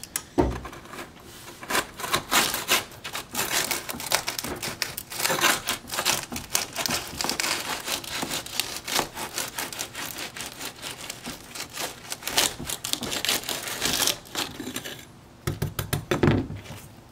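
Putty knife scraping and prying alcohol-soaked, glued ballast off model railway track: rapid gritty scratching and crunching strokes, with a short pause near the end. The ballast is being loosened to lift a PECO Code 83 turnout free.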